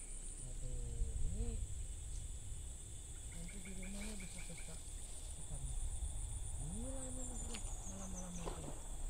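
Insects buzzing steadily at a high pitch, with short runs of rapid chirps and a falling pulsed trill near the end. Several low calls that rise and fall in pitch sound a few seconds apart.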